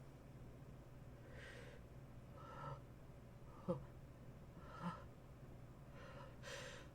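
A person with a cold taking faint gasping breaths and sniffs, about one a second, with one short sharp sniff near the middle. These are the catching breaths that build up to a sneeze.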